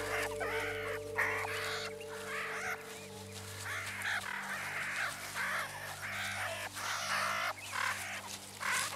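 Meerkats calling while they wrestle: a dozen or so short calls in quick succession, over a low steady music drone.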